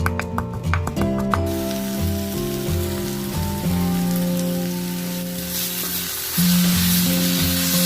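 Food sizzling in hot oil in a pan, starting about a second and a half in and growing louder near the end, under background music with a steady bass line.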